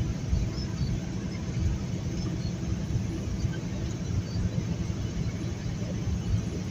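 Steady low rumble of a fully loaded semi-truck cruising at highway speed: engine and road noise.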